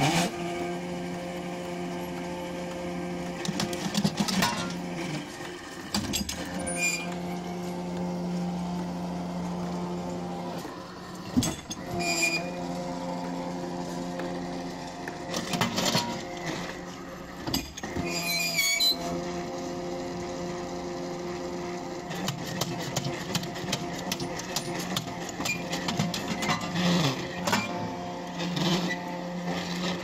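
Small drop-hammer pile driver at work: its electric winch runs with a steady hum, broken every few seconds by sharp knocks and clanks from the hammer and rig.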